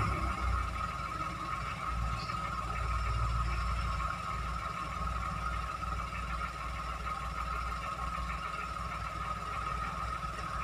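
Toyota Agya car engine running steadily: a low, unsteady rumble under a constant high-pitched hum.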